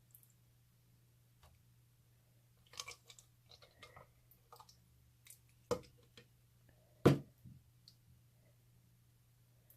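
Slime being squished and stirred, making scattered sticky clicks and pops; the loudest pop comes about seven seconds in. A faint steady hum lies underneath.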